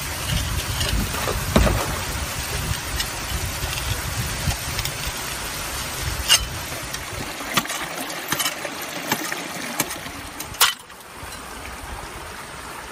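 Rushing water of a small waterfall as a steady hiss, with scattered sharp clicks and knocks of a steel shovel blade levered in a crack in the rock. The loudest knock comes just before eleven seconds in, and the water noise drops away abruptly right after it.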